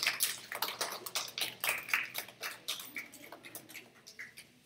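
Applause from a small audience: many quick claps at first that thin out and fade away over a few seconds.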